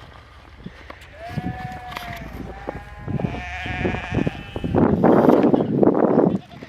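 Several drawn-out bleats, one after another, from a young farm animal. Near the end a loud, steady rushing noise takes over.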